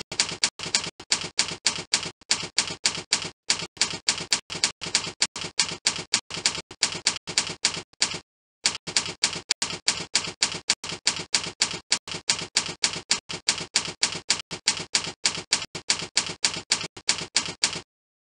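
Typewriter sound effect from a slide-text animation: rapid, even keystroke clicks, about seven a second, as the text is typed onto the slide, with one brief pause about eight seconds in.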